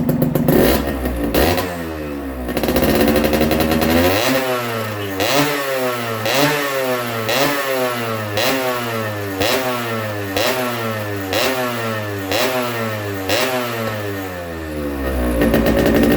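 Motorcycle engine with its original five-speed block revved over and over, the pitch climbing and dropping back about once a second, with a steadier engine note before and after the revving.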